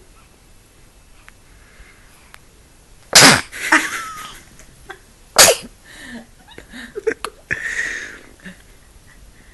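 Two loud, sharp sneezes about two seconds apart, each followed by softer snuffling and breathy sounds.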